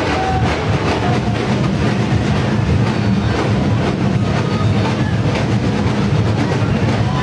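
Loud, steady din of a packed crowd, with a low rumble underneath and no clear speech standing out.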